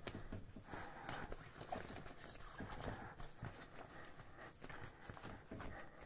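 Soft plastic skin of a deflating inflatable toy boat crinkling and rustling as hands press and fold it, in irregular crackles and light knocks.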